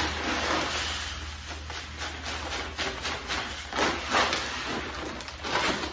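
Dry long-grain white rice pouring from its bag into a plastic five-gallon bucket: a continuous hiss that swells several times as the bag is tipped.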